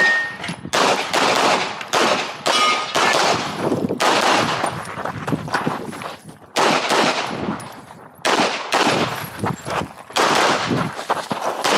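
CZ Shadow 2 9mm pistol fired in a fast string of shots. The shooting stops briefly about six and again about eight seconds in, then picks up again.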